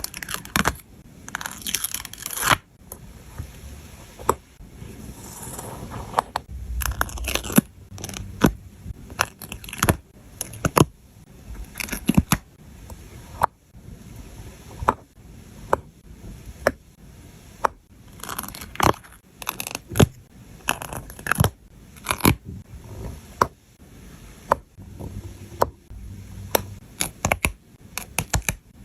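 Scenery stickers being peeled off their backing sheets and pressed and scraped into place, with many sharp small taps and clicks scattered throughout and a few brief peeling or tearing sounds.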